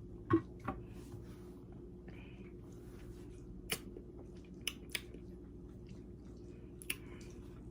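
A few faint clicks and small mouth sounds, the loudest just after the start, over a low steady hum.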